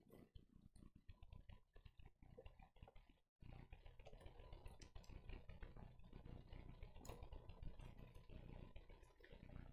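Near silence with faint paper rustling and page turning, scattered soft clicks and crinkles as sheets and Bible pages are handled, briefly dropping to dead silence about a third of the way in.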